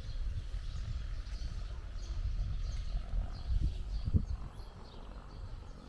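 Outdoor rural ambience: a fluctuating low rumble with faint bird chirps scattered through it, and two brief low sounds a little past the middle.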